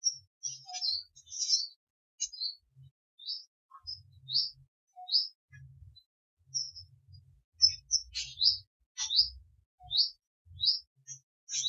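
Small birds chirping: short, high, quick chirps, some sweeping in pitch, in irregular series throughout, denser in the second half.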